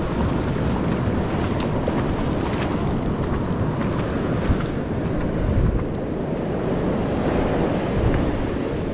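Wind buffeting the microphone over the steady rush of breaking surf.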